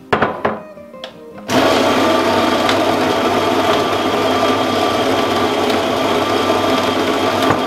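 A few knocks as a glass bowl is set under the spout, then about a second and a half in an electric grain mill starts up and runs loud and steady, grinding wheat berries into whole wheat flour.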